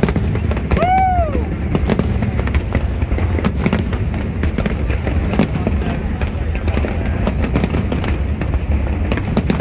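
Aerial fireworks going off: a dense run of sharp bangs and crackles over a continuous low rumble, with a short rising-then-falling tone about a second in.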